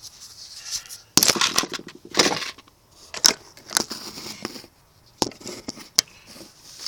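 Hands handling a soft plastic fishing lure and hook: crackling, rustling plastic for about a second and a half, then a few sharp clicks.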